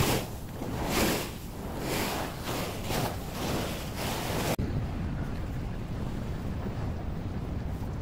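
Small waves breaking and washing up a sandy beach, with wind on the microphone. About halfway through it cuts abruptly to a steadier, duller wash of surf and wind.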